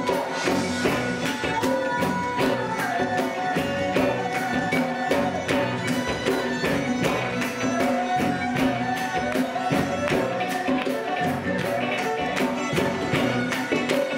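Live band music: a steady beat of crisp percussion strokes, about four a second, under a sustained melody line.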